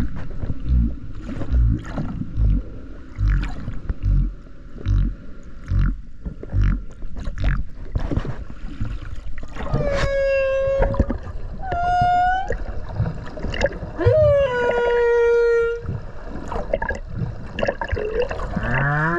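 Humpback whale song heard underwater: a run of low pulses a little more than once a second, then three long pitched cries about halfway through, the last one dipping slightly in pitch, and a rising moan near the end.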